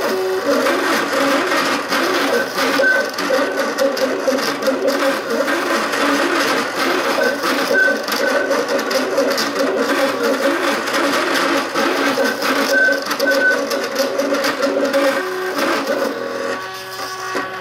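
MakerBot Cupcake CNC 3D printer printing, its stepper motors whining in short tones that jump in pitch with each move of the axes, over a fast light rattle. Near the end the tones settle into a steadier hum.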